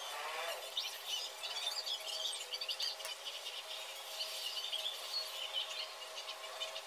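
Coloured pencil scratching across paper in quick, short hatching strokes.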